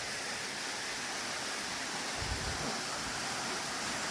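Steady rushing of a waterfall, with a brief low buffet of wind on the microphone about two seconds in.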